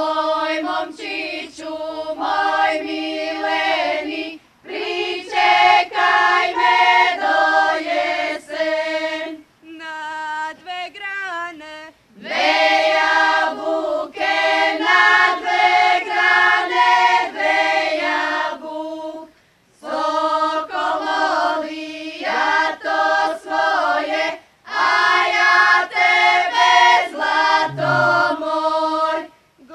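A group of voices singing a Croatian folk song unaccompanied, in phrases of a few seconds with short breaks between them.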